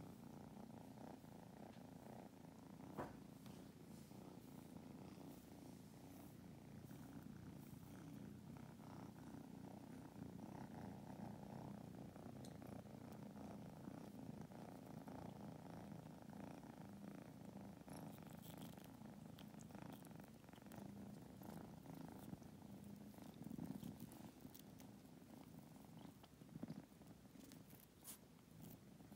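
A kitten purring steadily and faintly while being brushed with a toothbrush, with a few faint clicks and scratches scattered through.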